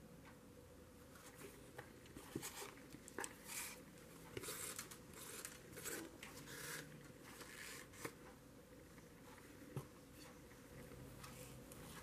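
Faint rustling, scraping and small clicks of hands threading thin elastic cord through the eyelets of a small fabric-covered journal cover, busiest in the middle and dying down near the end.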